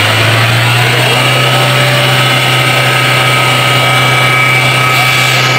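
Suzuki Cultus EFI three-cylinder petrol engine running steadily at raised revs to warm up, with a thin steady whine over the engine note. The engine is being brought to temperature before its idle speed is set, after the throttle body and idle speed control valve were cleaned.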